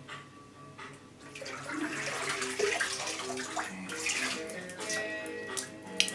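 Water splashing and streaming back into a bathtub as a painted canvas is lifted out of the paint-covered marbling water, starting about a second in and tailing off near the end, over background music with plucked strings.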